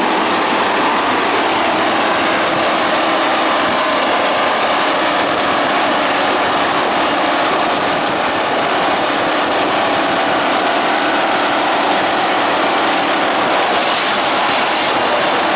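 Plasser India Unimat 3S track tamping machine at work, its vibrating tamping tines packing ballast under the sleepers: a loud, steady mechanical din, with a few sharp clicks near the end.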